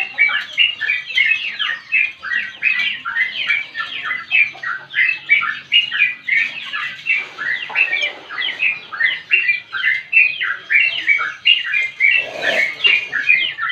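Yellow-vented bulbul (trucukan) singing a long, unbroken chattering song of short, rapid notes, about three to four a second. A brief low rustle about twelve and a half seconds in.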